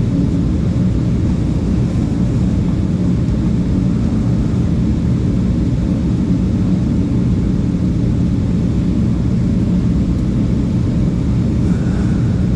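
Steady low mechanical drone with a constant hum.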